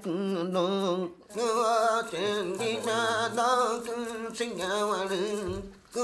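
A man chanting in a wavering voice, with short pauses for breath about a second in and near the end.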